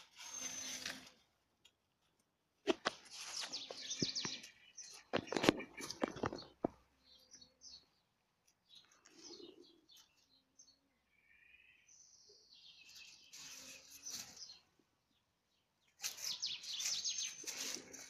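Cats scuffling over a dead bird in dry leaf litter: bursts of rustling and crackling leaves as they pounce and grab, with faint chirps in the quieter stretches between.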